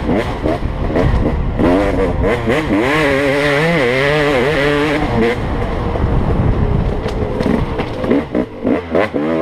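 Dirt bike engine running hard on a trail ride, its revs swinging up and down as the throttle is worked, with quick short bursts of throttle near the end.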